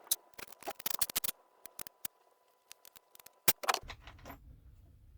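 Rapid clicks and crackles of hand work with materials, in a dense run in the first second or so, a few scattered after and another short run near the end. A low steady hum starts about four seconds in.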